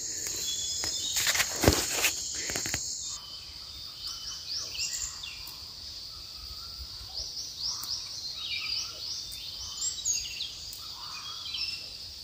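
A steady high insect trill with a few knocks for the first three seconds. Then the sound changes abruptly to repeated short, high rising-and-falling bird chirps over a faint insect background.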